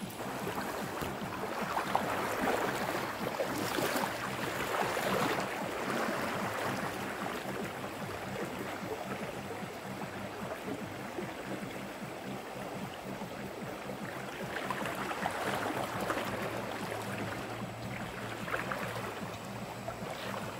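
Fast-flowing, flooded river rushing steadily, with splashing of a person wading through the current, loudest in the first few seconds.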